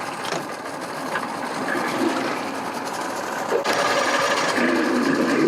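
Boat outboard motor running with a rapid, even clatter, getting louder about three and a half seconds in.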